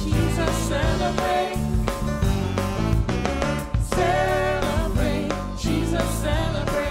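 Gospel music from a live church service recording: singing over a band with bass and regular drum hits, playing continuously.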